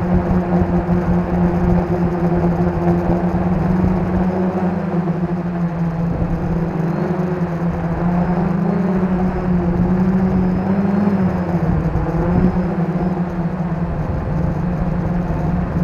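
450-size quadcopter's motors and propellers whirring steadily, picked up by a camera mounted on the frame. The hum wavers up and down in pitch for a few seconds midway through as the motor speeds shift.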